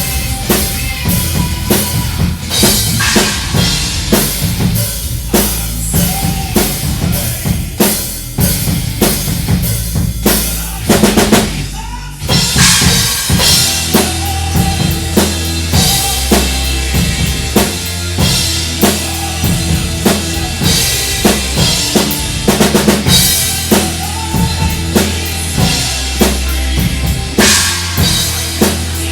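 Heavy metal music led by a prominent drum kit, with steady bass drum and snare hits and a short break about twelve seconds in.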